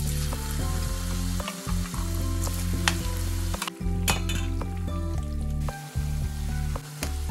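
Spiced taro root cubes sizzling as they fry in hot vegetable oil in a stainless steel pan, the sizzle starting as they go into the oil. There are a few sharp clicks, the loudest about three seconds in.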